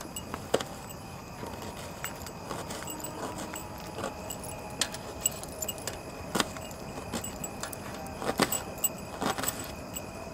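Knife chopping vegetables on a metal pot lid: irregular sharp taps, with metal bracelets and rings jingling along with the hand movements.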